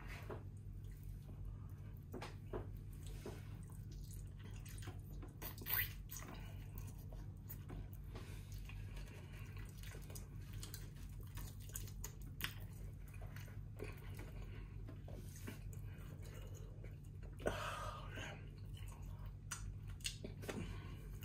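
Close-up eating sounds: sauce-covered grilled chicken being torn apart by hand, chewed, and fingers licked, heard as scattered short wet clicks and smacks, two of them louder. A steady low hum runs underneath.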